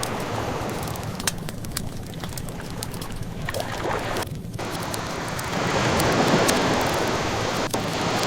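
Ocean waves washing in and drawing back, one swelling up about two thirds of the way through, over the small sharp pops and crackles of a wood fire burning.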